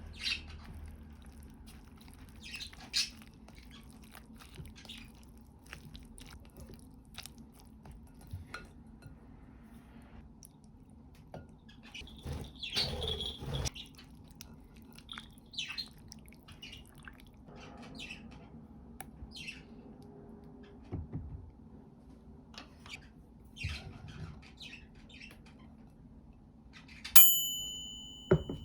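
Kitchen handling sounds: scattered light clicks and taps of utensils and dishes over a steady low hum, with a busier patch of clatter midway. Near the end comes one sharp ringing tone, the loudest sound, dying away over about a second.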